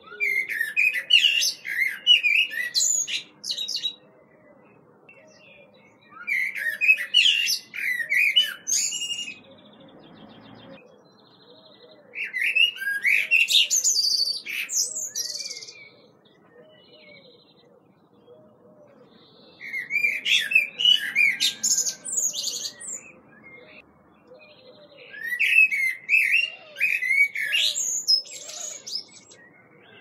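European robin singing: five phrases of fast, varied, high warbling notes, each a few seconds long, with short pauses between them.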